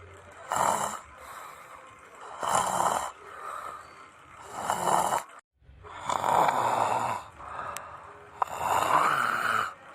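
A person snoring: about five loud snores roughly two seconds apart, the sound dropping out completely for a moment about halfway through.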